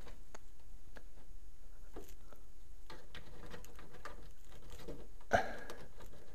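Faint scattered clicks and light taps from a chrome trim strip being handled and pressed against a car body panel, with one louder short knock about five seconds in.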